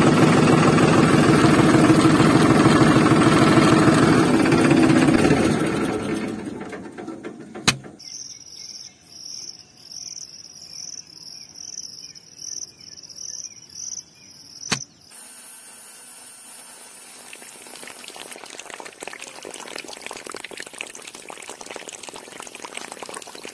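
A tractor engine chugging in an even rhythm, fading out about six seconds in. After a sharp click comes a pulsing high chirping like crickets, about two pulses a second, which ends with another click. Then water runs with a steady soft hiss over the soil of a planted furrow.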